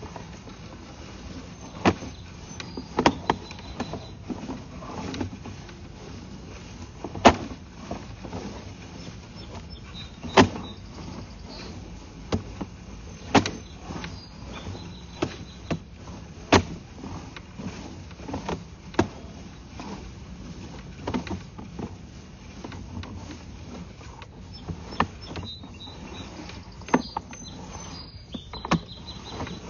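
Sewer inspection camera rig working a camera back through the pipe: irregular sharp clicks and knocks, every second or two, over a steady low hum.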